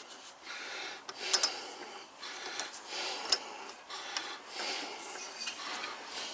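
Wooden jig parts being handled at the lathe: irregular rubbing and scraping, with sharp clicks about a second in and again about three seconds in.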